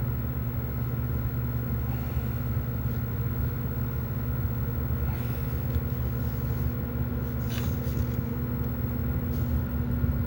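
Steady low mechanical hum made of several fixed pitches, with a few faint, brief handling noises in the middle.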